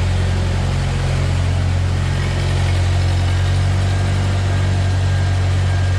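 Engine idling steadily, a low even note with no revving.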